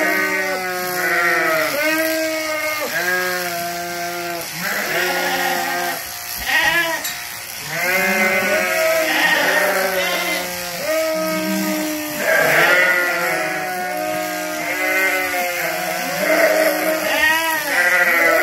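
Sheep bleating over and over, one call after another at about one a second.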